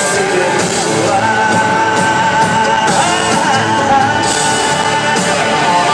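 Live country-rock band playing with a lead vocal, a singer holding one long note for about three seconds over guitars and drums, as heard from the audience.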